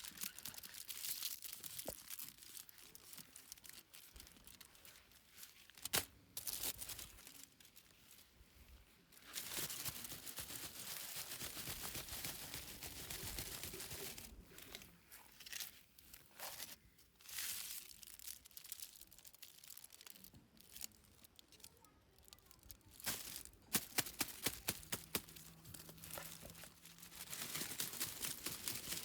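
Toy packaging being torn open by hand, with plastic wrapping crinkling, in stretches with short pauses. There is a sharp click about six seconds in and a run of quick clicks near the end.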